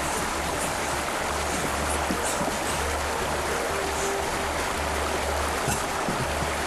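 Steady rush of fast-flowing river water, with a low rumble underneath.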